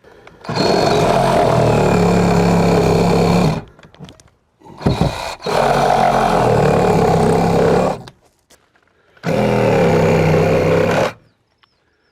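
Cordless reciprocating saw (Sawzall) cutting into a wall in three bursts of a few seconds each, stopping briefly between cuts.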